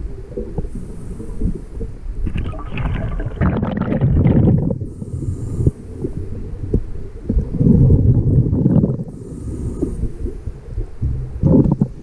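Underwater, a scuba diver breathing through a regulator, with bubbles rumbling out on each exhale in surges every four to five seconds over a constant low underwater rumble.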